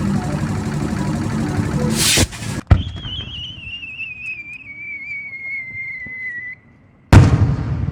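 Fireworks: a sharp bang, then a whistling firework's long whistle sliding slowly down in pitch for about four seconds, then a loud explosion near the end with a fading rumble. The first two seconds hold dense crackling noise.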